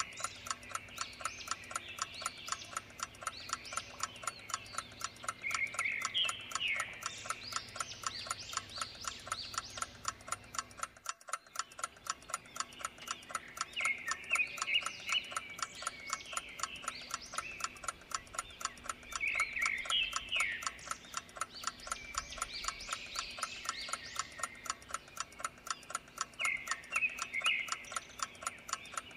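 Clock ticking steadily over a background of birds chirping in short phrases every several seconds. All sound drops out briefly about eleven seconds in.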